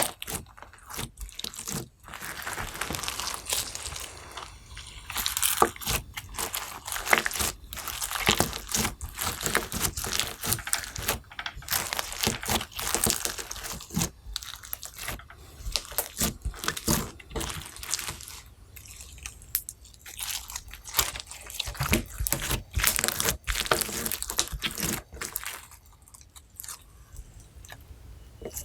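Slime being worked by hand, squished and pressed, giving a dense, irregular run of small crackles, pops and crunches.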